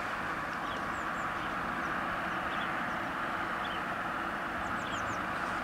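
Small birds chirping short, falling notes every second or so over a steady hum and hiss of outdoor background noise.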